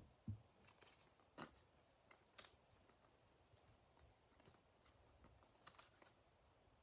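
Near silence, broken by a few faint clicks and taps as trading cards are handled and laid down on a tabletop playmat.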